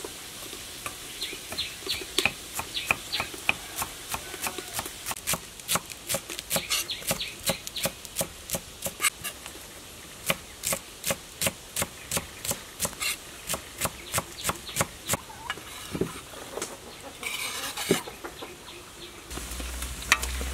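Kitchen knife chopping spring onions on a wooden chopping board, steady chops about three a second. Near the end it gives way to pieces of duck frying and sizzling in oil.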